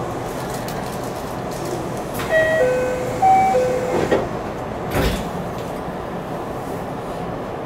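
Inside a JR West 323 series commuter train car standing at a station: a door chime of two falling two-note pairs sounds, followed by a click and the sliding doors shutting with a thud about five seconds in, over the car's steady hum. This is the door-closing sequence before departure.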